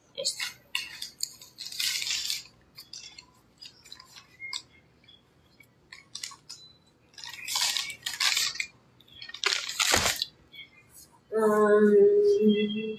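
Crackling and rustling from handling belongings while packing, in several short bursts. Near the end comes a steady hum-like pitched tone lasting about a second and a half, the loudest sound here.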